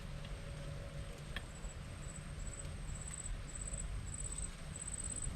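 An insect trilling in repeated short high-pitched bursts, starting about a second and a half in, over a steady low rumble.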